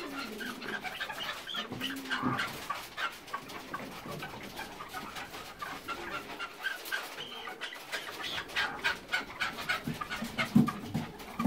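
Red-legged partridges calling: a steady run of short clucking notes, with a few lower drawn-out calls about two seconds in and again near the end.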